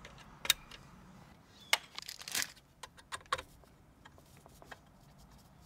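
A few sharp plastic clicks from small orange clips being worked onto connector tabs, with a brief rustle of plastic about two seconds in, then faint ticks of handling.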